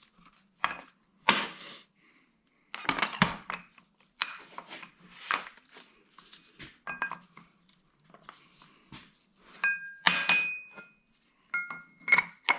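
Steel clamshell bearing puller pieces clinking and knocking as they are handled and fitted under a bearing race, in short irregular knocks with a few ringing metallic clinks near the end.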